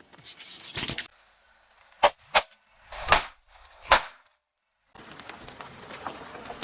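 A series of sharp pops and cracks as objects burst under a car tyre: two quick sharp cracks, then two louder bursts about a second apart, followed by a hiss.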